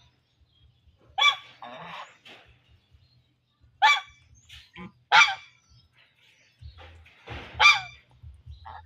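A goose honking: four loud, nasal calls about a second in, near four and five seconds, and near the end, with a few softer calls between them.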